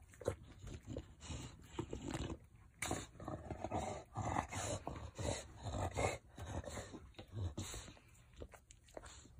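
English bulldog moving about and nosing into a bed of fleece blankets. Irregular bursts of its noisy breathing and grunts mix with the rustle of the blankets, busiest in the middle.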